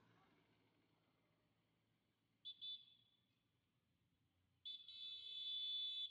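Vehicle horn honking: two short toots about two and a half seconds in, then a longer, louder blast near the end.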